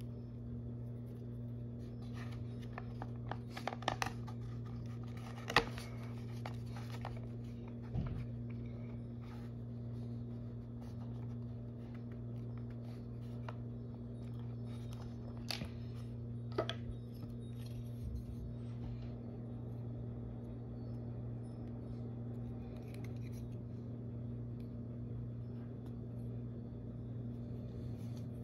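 Sculpting tools scraping and tapping on polymer clay: a few light clicks and scratches, bunched a few seconds in and again about halfway through, over a steady low hum.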